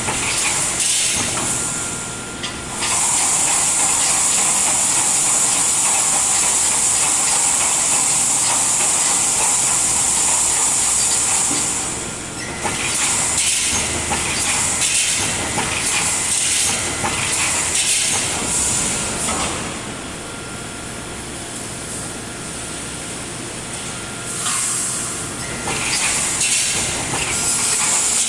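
Roll wire mesh welding machine running: a loud, steady mechanical clatter under long stretches of strong hissing that stop and start several times.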